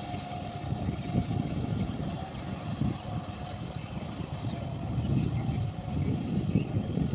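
Farm tractor's diesel engine running steadily under load as it drags a harrow through a flooded, muddy rice paddy.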